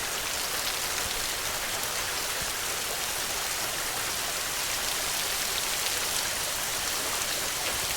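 Steady rain falling, an even hiss with fine scattered drop ticks that does not change.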